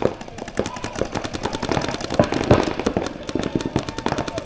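Paintball markers firing rapid, overlapping strings of shots, about ten pops a second.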